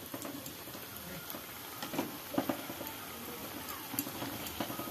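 Pakoras deep-frying in hot oil in a kadai, a steady sizzle, with several light metallic knocks and clatters as a wire skimmer is moved through the oil and against the pan.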